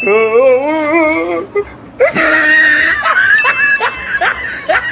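A voice whimpering in a wavering, crying tone for about a second and a half. About two seconds in it breaks into a louder outburst, then a quick string of short cries.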